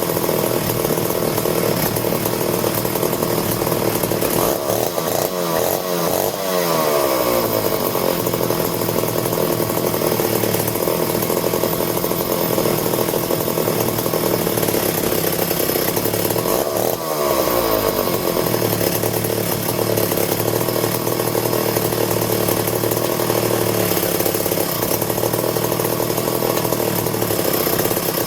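Vintage McCulloch 1-40 chainsaw's two-stroke engine running on its first test run after a carburetor install: idling steadily and revved up and back down twice, about five seconds in and again around seventeen seconds. It is untuned, and the owner suspects a slight spark miss at idle.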